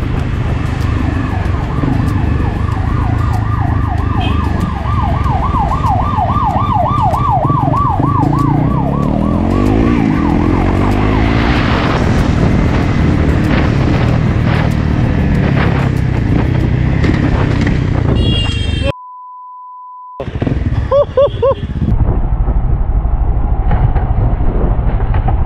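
Ambulance siren in a fast rising-and-falling wail, several a second, that dies away about eleven seconds in, over the steady engine and wind rush of a moving motorcycle. Later a short steady beep sounds over a brief dropout.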